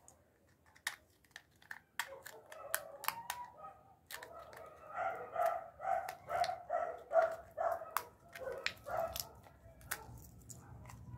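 Crinkling and small clicks of a thin lid being peeled off a used plastic coffee capsule by hand. A dog barks in quick repeated yaps, about two a second, from about four seconds in to near the end, louder than the peeling.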